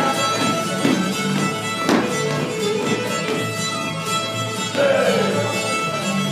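Fiddle-led barn dance tune with a steady beat.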